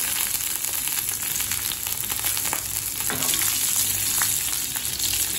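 Tempering of mustard seeds, cumin, dals, garlic, curry leaves and dried red chillies sizzling in hot sesame oil in a stainless steel pan, with scattered small pops and crackles.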